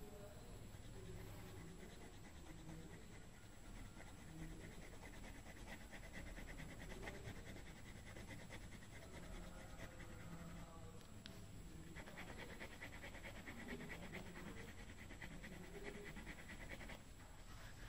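Pencil scratching rapidly back and forth on paper in two long runs of quick strokes, with a short pause between them.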